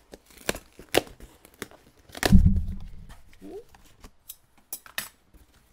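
Scissors cutting through the packing tape along the top of a cardboard box: a run of sharp snips and tape tearing, with a dull heavy thump about two seconds in as the box is handled.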